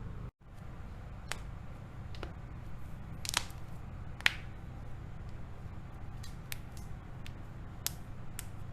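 Joints cracking under manipulation: a scattered series of about nine short, sharp pops, the loudest one near the middle, over a steady low hum.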